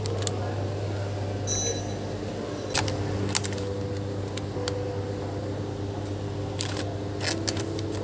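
Supermarket aisle ambience with a steady low hum, and several short sharp clicks and crinkles as plastic-packed goods are handled on a wire shelf.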